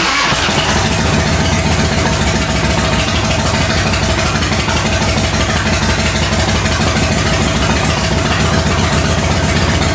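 A 1997 Harley-Davidson Fat Boy's Evolution V-twin catches right at the start and runs steadily on full choke. The engine is cold and will not keep running without the choke held on, which the mechanic puts down to an intake leak.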